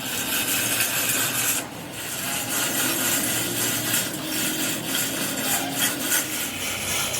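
Steady abrasive rasping on metal, like filing or sanding. It breaks off briefly just under two seconds in, then carries on in short irregular strokes.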